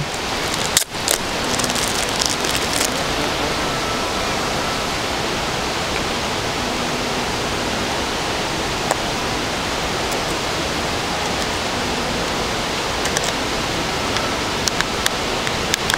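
Steady rush of a waterfall, an even wash of water noise. Near the end come a few faint clicks as a phone's plastic back cover is pressed into place.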